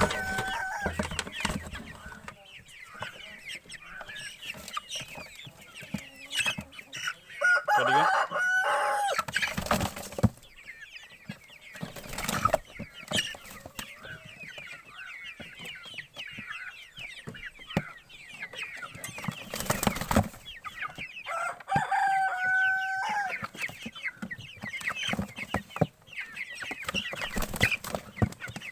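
Young broiler chickens peeping and clucking as they are caught and moved, with wing flapping and knocks of handling. A rooster crows twice, about eight seconds in and again near twenty-two seconds.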